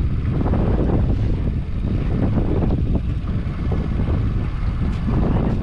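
Wind buffeting the microphone aboard a fishing boat trolling on open water, over the steady low running of the boat's motor.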